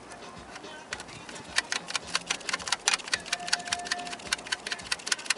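Ratchet wrench clicking in quick, uneven runs as bolts are turned on the EGR valve; the clicks are sparse at first and come several a second from about a second and a half in.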